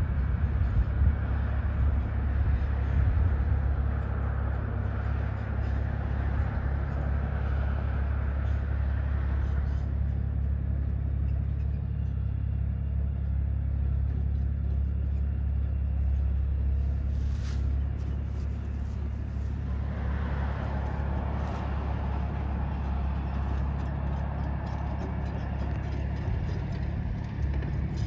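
Steady low hum of a diesel-powered lake freighter's engines carried across the water, with a rushing noise over it that drops away about ten seconds in and swells back about twenty seconds in.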